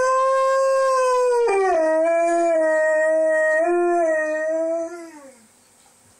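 Alaskan Malamute howling: one long, loud howl that starts high, drops abruptly to a lower pitch about a second and a half in, holds there, then slides down and fades out about five seconds in.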